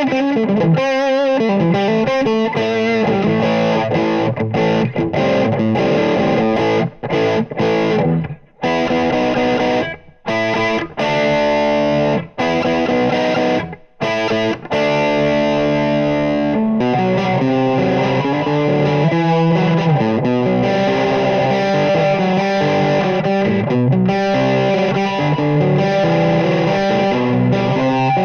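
Oscar Schmidt OE20 Les Paul-style electric guitar on its treble (bridge) humbucker, played through a VOX VT40X amp with a distorted tone. Licks with short pauses between phrases, then held, ringing chords in the second half.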